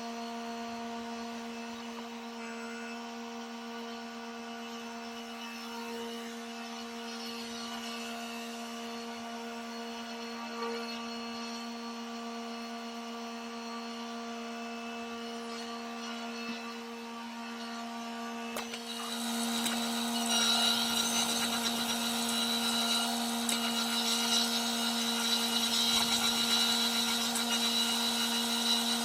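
Small gasoline engines of a log splitter and a pull-start firewood conveyor running steadily with an even mechanical hum. About two-thirds of the way in, a louder, rougher working noise joins over the hum.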